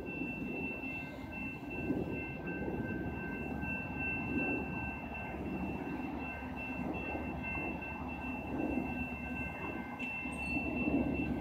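New Mexico Rail Runner Express commuter train approaching the station: a steady low rumble with a few thin, high steady tones running above it.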